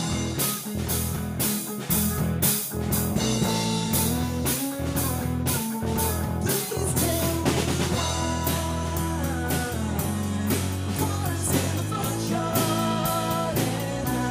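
Live rock band playing a passage without words: electric guitar, electric bass and drum kit, with a steady drum beat.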